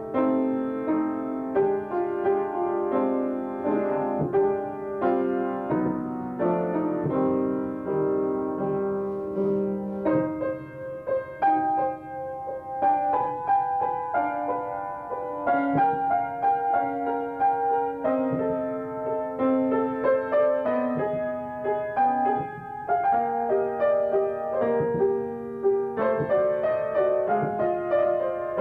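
Upright piano being played from sheet music, a continuous flowing piece with several notes sounding together as melody over chords.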